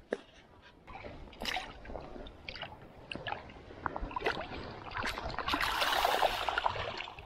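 Water sloshing and splashing, with scattered small knocks; the splashing grows louder for about two seconds near the end.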